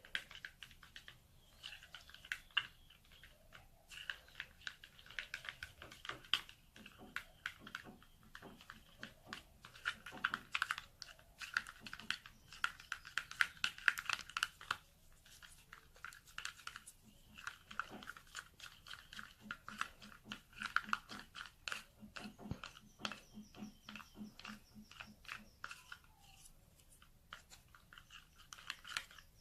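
Thick face cream being stirred and mixed in a small container with a utensil: many quick, irregular soft clicks.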